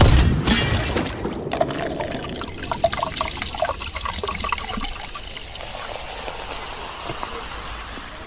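Liquid pouring and trickling, loudest at the start and tapering off.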